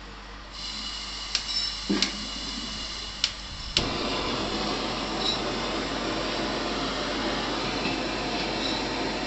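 LPG gas stove burner being lit: gas hissing from the opened valve, a few sharp lighter clicks, then the burner catches about four seconds in and burns with a steady rushing flame.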